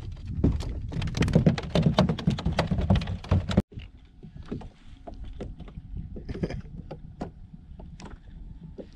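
Splashing and knocking at the side of a kayak as a redfish is landed, then scattered light knocks and taps against the kayak hull while the fish is handled.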